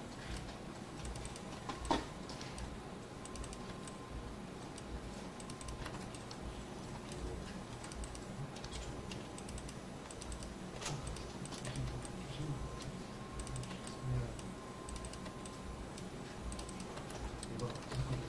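Scattered light clicks and taps of a computer mouse and keyboard over a steady low hum, with a sharper click about two seconds in.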